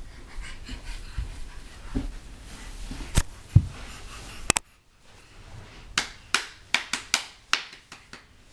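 A toddler clambering up carpeted stairs, with a series of sharp taps and knocks. A few come in the first half, then a quicker run of about eight in the second half.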